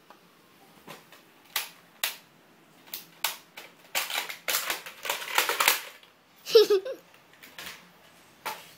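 Handling noise: a string of sharp clicks and knocks with a stretch of close rattling between about four and six seconds in. The loudest knock comes about six and a half seconds in.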